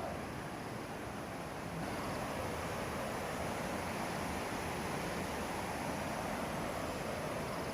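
Steady rush of falling and flowing water from Ramboda Falls, stepping up a little louder about two seconds in and then holding steady.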